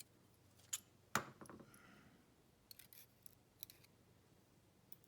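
A few faint, sharp metallic clicks and ticks from small pin-tumbler lock pins being handled and taken out of a disassembled padlock. The sharpest click comes about a second in.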